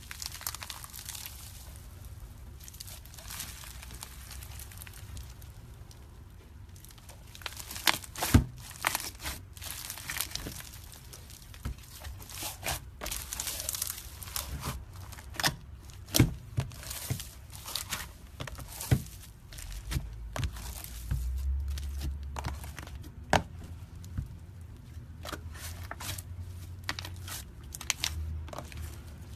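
Slime being squeezed, stretched and poked by hand, giving a sticky crackling with irregular sharp pops and snaps as air pockets burst.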